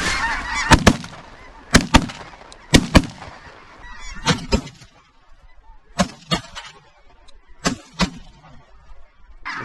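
Flock of Ross's geese calling loudly, then a rapid string of shotgun shots, roughly a dozen in close pairs, spread over about seven seconds while the calling dies away.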